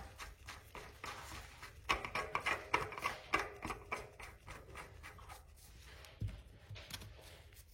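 Hands turning a bicycle rear hub and its axle and cone: light clicks and rubbing of small metal parts, most frequent between about two and four seconds in.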